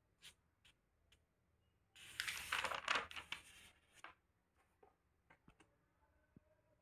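A notebook page being turned: one paper rustle lasting about a second and a half, starting about two seconds in. A few faint clicks of paper handling come before and after it.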